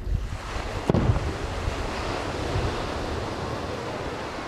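Aerial firework shell bursting: one sharp boom about a second in, over a rushing hiss that slowly fades.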